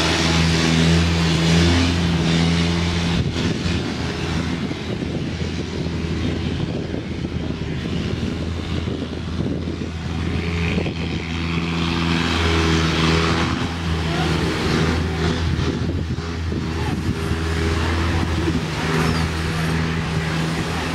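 An engine running at a steady speed: a low, even hum that swells and eases every few seconds, with a constant rush of noise over it.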